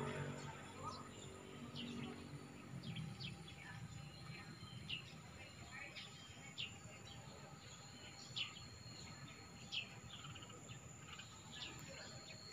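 Birds chirping outdoors: short, high chirps roughly once a second over a faint steady background. A tail of music fades out in the first few seconds.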